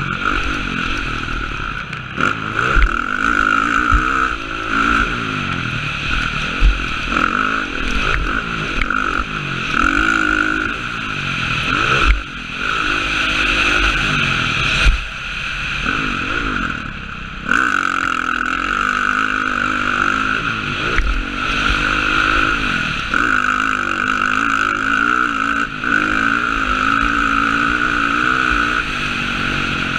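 Motocross dirt bike engine revving up and down as the rider works the throttle and gears around the track, heard through a helmet-mounted camera, with short thumps scattered through.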